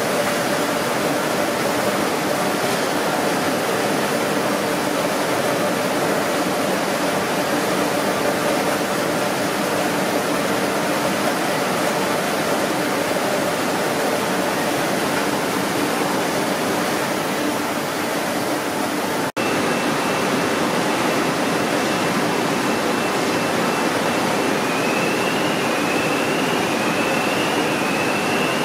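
Steady machinery and ventilation noise of a factory hall, an even rushing sound with a low hum underneath. It drops out for an instant about two-thirds of the way through. After that a faint high whine runs on, and a few short rising chirps come near the end.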